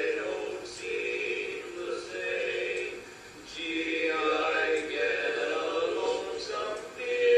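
Men's voices singing a cappella in barbershop close harmony, with a short break between phrases about three seconds in and a loud held chord near the end.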